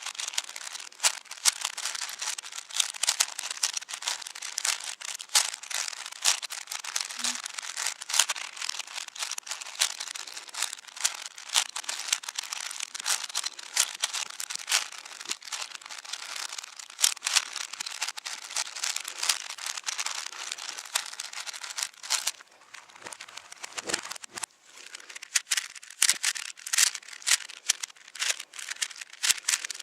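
Plastic speed cubes being turned very fast in a relay solve: a dense, rapid run of clicking and clacking from the layers, with a lull of a couple of seconds about two-thirds of the way through.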